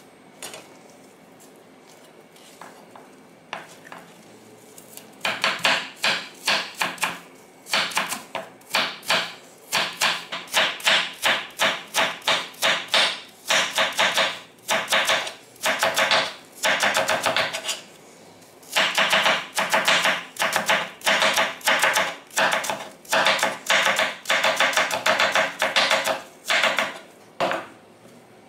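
Chef's knife chopping apple slices into thin matchsticks on a wooden cutting board: a few single cuts, then a long run of quick, even chops at about two to three a second, with a brief pause just past halfway.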